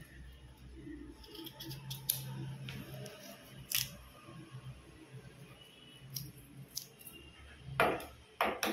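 Kitchen knife cutting peeled elephant foot yam into chunks over a steel bowl: a scatter of soft crisp cuts and clicks, with a few louder knocks near the end.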